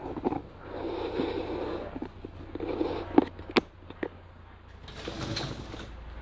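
A Whirlpool dishwasher's racks and dishes being handled: three rattling slides of about a second each, with a few sharp clinks of crockery in the middle.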